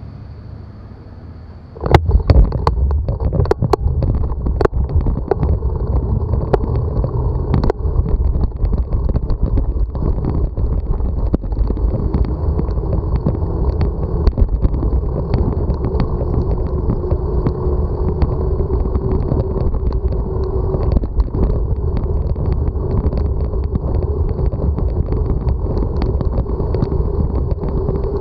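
Wind and road rumble on a bicycle-mounted camera's microphone as the bike sets off about two seconds in and rides on, with sharp clicks and knocks in the first several seconds of riding.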